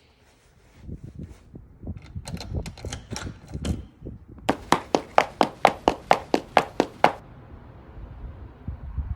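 Quick, evenly spaced footsteps on a hard surface, about five a second, after a few seconds of irregular bumps and clicks; the steps stop suddenly about seven seconds in and start again at the end.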